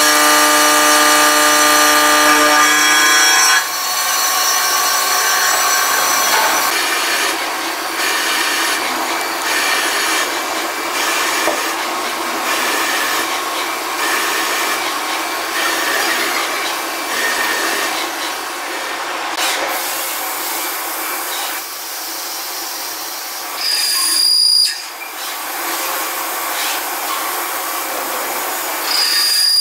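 Five-axis CNC machining center at work: a steady multi-tone spindle whine for the first few seconds, then the continuous cutting noise of a 24 mm rapid drill boring into metal at 2000 rpm. A short high whine sounds twice near the end.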